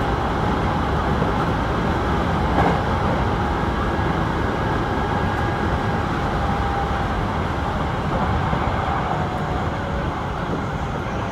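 Running noise of a Hankyu Kobe Line electric commuter train heard inside the front car: a steady rumble of wheels on rail with a faint steady whine. There is a single click about two and a half seconds in, and the noise eases slightly near the end.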